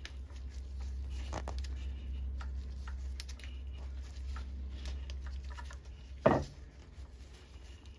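Hand-turned helicoil tap cutting new threads into a stripped bolt hole in an aluminum T5 transmission case: faint scraping and clicking of the tap and gloved hands over a steady low hum. A short louder knock about six seconds in.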